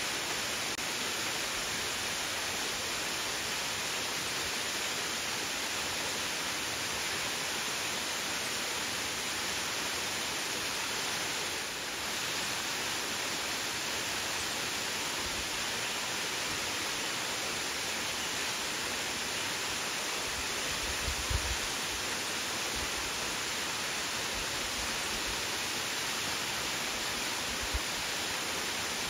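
Steady rushing of falling water from a gorge waterfall, an even hiss with a few soft low thumps about two-thirds of the way through.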